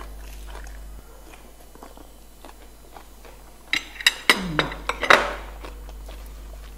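Close-up eating sounds: a quick cluster of sharp crunches and clicks about four seconds in, from biting and chewing crisp raw green papaya salad and leaf wraps, with a short falling hum among them.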